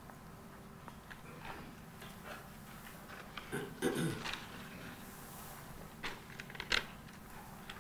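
Quiet room tone with scattered faint clicks and rustles. There is a brief low sound about four seconds in and a sharp click a little before the end.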